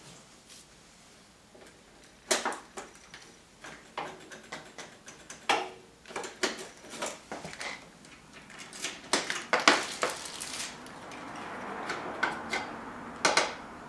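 Hands working on a Yamaha Gear 50cc scooter: a string of irregular clicks, knocks and rattles of its plastic body parts and metal fittings as they are handled, with a few louder knocks.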